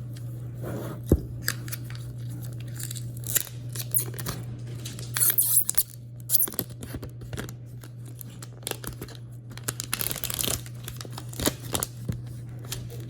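Packaging on a new smartphone box being torn open and handled: crinkling and tearing with scattered clicks, and two louder tearing rips about five and ten seconds in. A steady low hum runs underneath.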